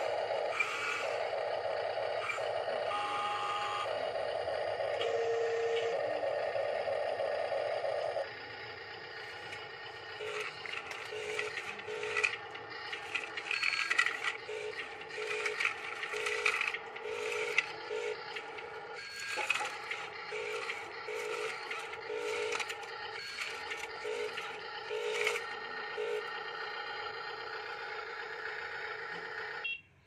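Gravel scraping and clattering as radio-controlled model construction machines push and scoop it, with the whine of their small electric motors. A steady whine for about the first eight seconds, then irregular rattling of small stones over short, on-off motor whines.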